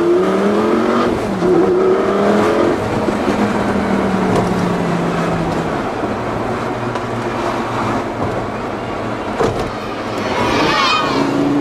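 Lamborghini Gallardo's V10 heard from inside the cabin: it revs up, drops in pitch at a gear change about a second in, then runs steadily at light throttle, and its note rises again near the end.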